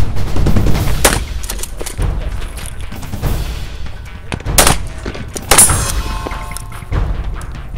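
Pump-action shotgun shots: three sharp blasts, the first about a second in and two more about a second apart near the middle, over background music.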